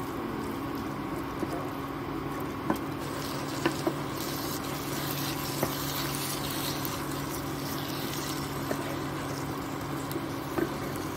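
Minced meat (kheema) with green chilli–coriander paste sizzling as it fries in a non-stick pan, stirred with a spatula, with a few sharp taps against the pan. A steady hum runs underneath.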